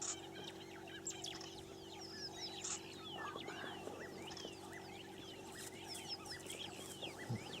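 Wild birds calling in a busy chorus of many short, quick falling chirps, over a steady low hum.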